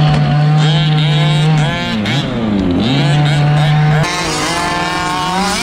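Large-scale HPI 5T RC truck's two-stroke gas engine heard onboard, held at high steady revs, dipping and picking up again twice as the throttle is eased and reopened. About four seconds in the sound cuts to more distant RC buggy engines revving.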